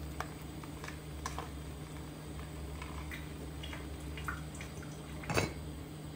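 Small clinks and taps of kitchenware over a steady low hum, with one louder knock about five seconds in.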